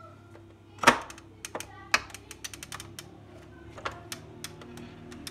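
A stopped stand mixer being handled: one loud knock about a second in, then a run of light clicks and taps as the flat beater in the steel bowl is gripped and worked loose.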